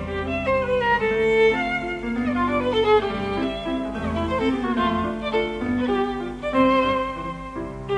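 Instrumental background music: a melody of held notes.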